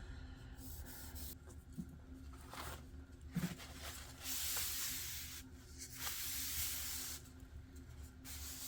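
Stain being rubbed onto wooden trim: several long rubbing strokes, each about a second, over a faint steady hum.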